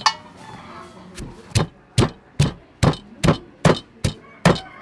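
Wooden pestle pounding sliced lemongrass in a wooden mortar: a steady rhythm of dull thuds, about two and a half a second, starting about a second in. A single sharp knock at the very start.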